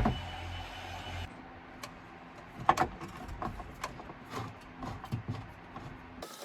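Irregular light clicks, taps and knocks of hands working loose the dash trim panels and wiring in a tractor cab, with a sharp click right at the start and a low hum for about the first second.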